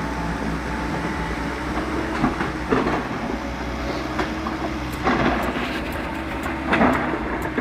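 Excavator's diesel engine running steadily, with several loud, irregular metal clanks and bangs from the machine working.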